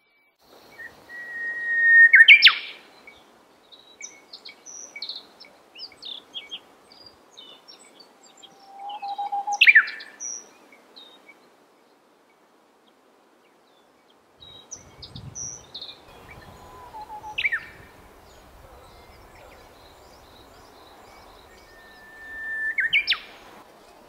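Wild songbirds singing. One bird repeats a loud phrase four times, about every seven seconds: a held whistle ending in a sharp high note. Fainter short chirps come in between.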